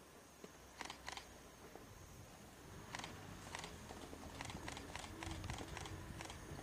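Quiet, scattered camera shutter clicks, in quick pairs and short runs, over a faint low rumble that grows a little louder about three seconds in.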